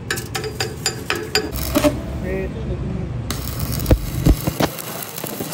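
Stick arc welding inside the worn bearing bore of a drive shaft universal-joint yoke: a steady crackling hiss starts about three seconds in, with three heavy low thumps about a second later. Before it, a fast regular ticking.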